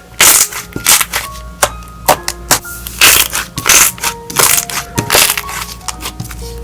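Clear slime being squeezed and pressed by hand, its trapped air pockets popping in a rapid, irregular run of sharp clicks and crackles over light background music.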